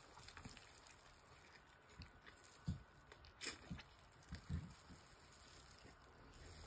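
Faint eating sounds of chicken being chewed and bitten, with a few short, low knocks about halfway through, over near-silent room tone.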